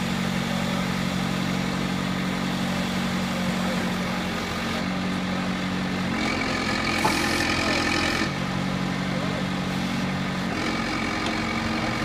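Backhoe's diesel engine idling steadily. About six seconds in it speeds up with a higher whine for about two seconds and then settles back to idle, and it does so again briefly near the end, as the levers are worked.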